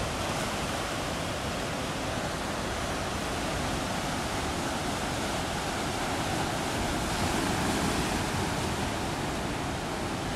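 Steady rushing of ocean surf, with breaking waves as a continuous hiss and rumble that swells slightly about eight seconds in.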